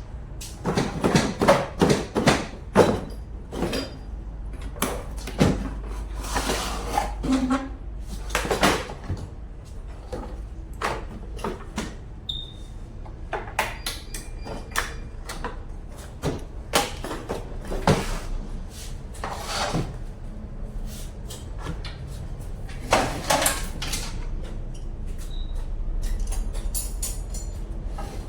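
Irregular metallic clanks, clinks and knocks of hand tools against metal parts, with a quick run of strikes in the first few seconds, over a steady low hum.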